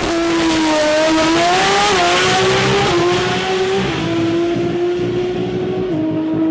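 A drag-racing car's engine at full throttle as it launches and pulls down the strip. The engine note climbs and drops back at each upshift, about four times.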